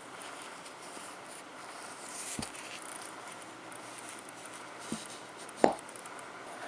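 Soft knocks from handling a one-ounce silver coin in a cotton-gloved hand, the loudest, a short dull knock near the end, as the coin is set down flat on a cork surface.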